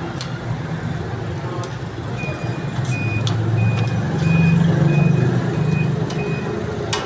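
A vehicle's engine running with a low rumble that swells in the middle, while its reversing alarm beeps about seven times at an even pace, starting about two seconds in. A few sharp metal clicks of a spatula on the griddle.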